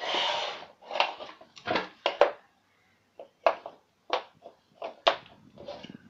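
Wooden toy train track pieces being handled on a laminate floor: a short scrape at the start, then a string of irregular wooden knocks and clacks as pieces are picked up and set down.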